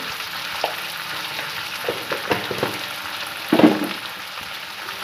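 Sliced onions and tomato sizzling in hot oil in a steel wok, with a few light clicks and one louder knock about three and a half seconds in.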